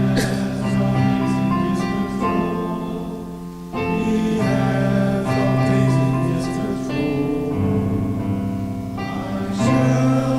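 Congregation singing a hymn with piano accompaniment, in held chords that change every second or so, with a short break between lines about four seconds in.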